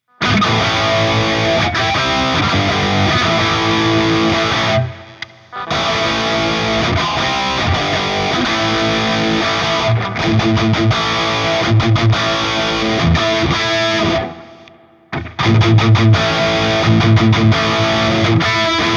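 Electric guitar played through a distorted, high-gain Friedman amp emulation on a digital modeling preamp, in three played passages with short breaks about five seconds in and near fifteen seconds in.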